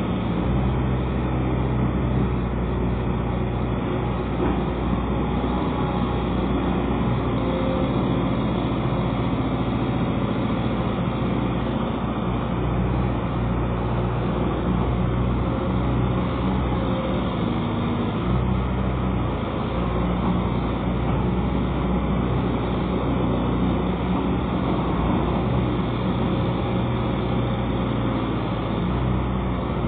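Pontoon-mounted excavator's diesel engine running steadily as it works, its low note shifting now and then with the load.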